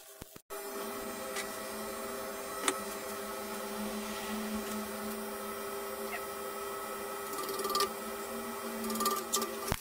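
Steady electrical hum of a stick (arc) welding machine standing by, with a few light metal clicks as a bolt is positioned with pliers and the electrode holder is brought up to it.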